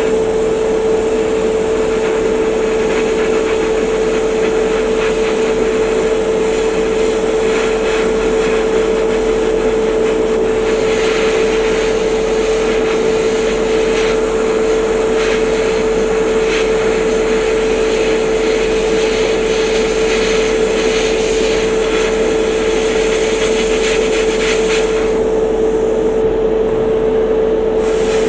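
Small airbrush compressor running with a steady, high hum, while the airbrush sprays primer in short hissing spurts from about ten seconds in until near the end.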